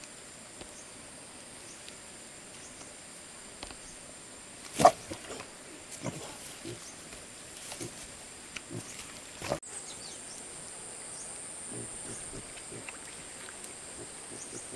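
Hands scrabbling and rustling through grass on muddy ground, with one short, loud cry about five seconds in, followed by a few smaller scuffs. A steady high insect buzz runs underneath.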